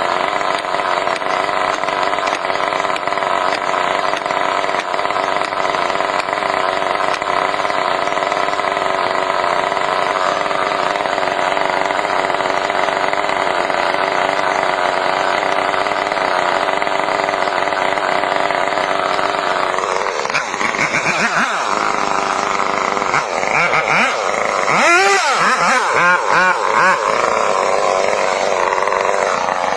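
A motor engine runs steadily. From about 20 seconds in, its pitch repeatedly dips and rises as it works under varying load.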